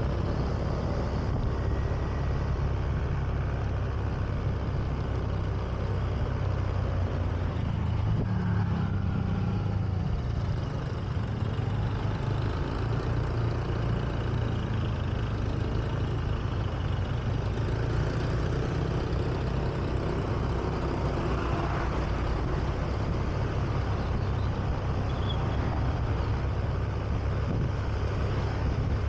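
Honda Beat scooter being ridden through traffic: its single-cylinder engine runs steadily under road noise, a constant low rumble with no sudden events.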